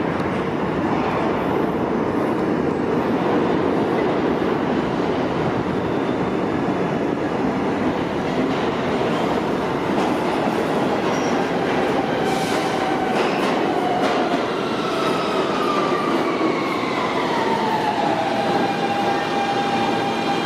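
New York City subway trains in a station: the steady rumble and rattle of an R160 E train pulling into the platform. From about twelve seconds in, a whine falls in pitch as a train slows, then holds a steady tone near the end.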